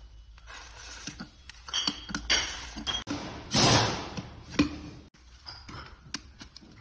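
Metal tools and parts of a metal air-operated double diaphragm pump clinking and scraping as it is taken apart by hand, with a louder scrape about three and a half seconds in.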